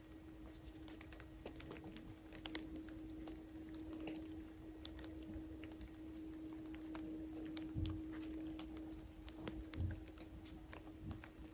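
Faint, irregular clicks and taps over a steady low hum, with two dull thumps about eight and ten seconds in.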